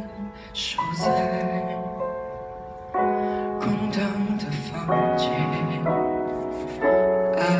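Slow piano introduction to a pop ballad: a chord struck about every two seconds, each ringing and fading before the next.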